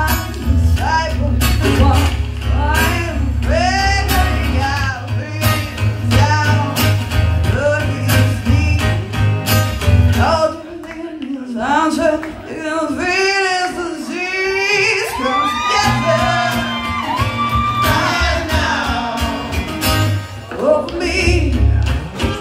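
Live band performing a song: several voices singing over acoustic guitars and bass. About ten seconds in the bass drops out for a few seconds, leaving the voices almost alone, then the full band comes back in.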